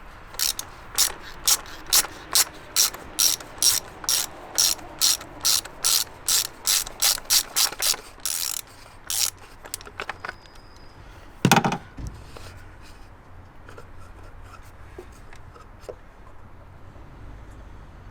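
Socket ratchet wrench clicking in quick, even strokes, about three a second, as a 32 mm socket undoes the oil filter housing cap. The clicking stops about nine seconds in, and a single loud knock follows near twelve seconds.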